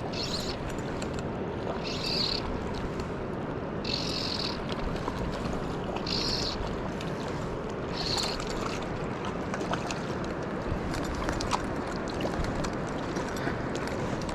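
Mountain stream water rushing steadily. A short high-pitched call repeats about every two seconds, five times, over the first half.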